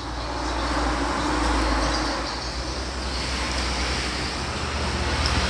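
Steady low rumbling background noise with no distinct events, swelling slightly about a second and a half in and then holding even.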